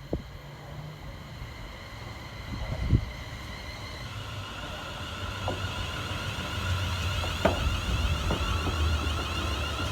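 A vehicle approaching and growing louder: a low rumble with a steady whine that strengthens about four seconds in, and a few sharp clicks.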